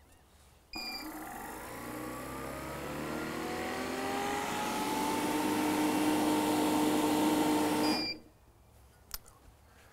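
Hilmor brushless DC refrigerant recovery machine in purge mode, clearing the last refrigerant from the machine into the recovery tank. It starts with a short beep about a second in and runs with its pitch rising steadily and growing louder. About eight seconds in it shuts off with another beep.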